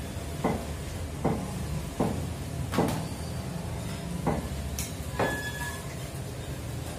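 Meat cleavers chopping chicken on thick wooden tree-stump chopping blocks: six or seven sharp chops at uneven intervals, over a steady low background hum.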